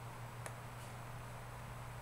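Steady low electrical hum, with a single faint computer mouse click about half a second in.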